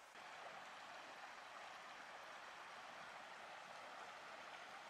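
Faint, steady rush of a mountain river's flowing water, with no other events.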